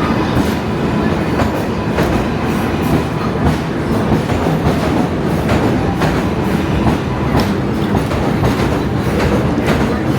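New York City subway train running between stations, heard from inside the car: a steady heavy rumble with the wheels clacking over rail joints.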